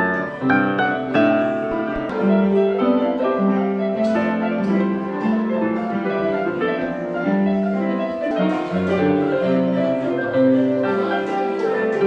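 A melody played on an electronic keyboard in a piano voice, single notes moving over slower held bass notes.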